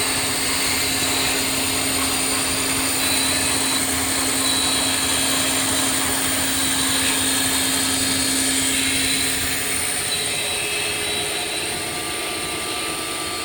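CNC machine running: a steady mechanical whine with several held tones, one low tone dropping out about ten seconds in.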